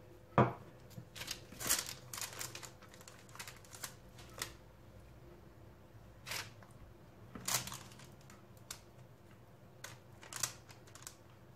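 Pastry brush dabbing egg yolk wash onto raw dough balls on a baking tray: soft scattered swishes and light clicks, with one sharp knock about half a second in.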